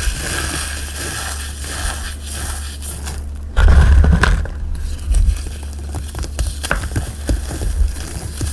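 Dyed gym chalk and cornstarch being crushed and crumbled close to the microphone: a steady run of small dry crunches and crackles, with a heavier, louder crunch about three and a half seconds in.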